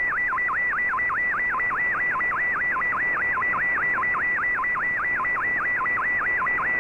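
Shortwave MFSK image transmission received on an Icom IC-R8600: a warbling tone that dips in pitch and swings back up about four or five times a second, over steady shortwave hiss. The tone carries a picture being decoded, its pitch following the brightness of the pixels line by line.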